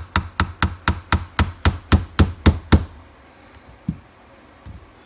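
Ball-peen hammer tapping quickly and evenly, about four blows a second for nearly three seconds, driving a small roll pin out of a Milwaukee M12 die grinder's housing. A single lighter knock follows about a second later.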